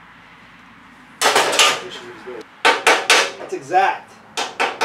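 Metal clanking and rattling in three short bouts, starting about a second in: hard metal pieces knocking together in a metal-working shop.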